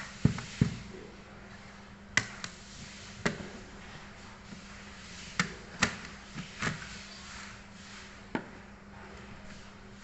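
Sharp clicks and light knocks of plastic laptop parts and connectors being handled while a Dell Inspiron Mini 1018 netbook is taken apart: about nine irregular taps, most of them in the first seven seconds, over a faint steady hum.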